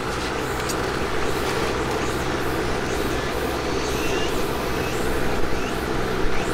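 Steady mechanical hum with a constant rushing noise, along with a few faint clicks of chopsticks against dishes.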